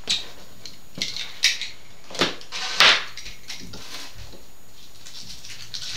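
Polystyrene foam packaging and cardboard box being handled: a series of short scrapes and rubs, the loudest about three seconds in, then quieter rustling.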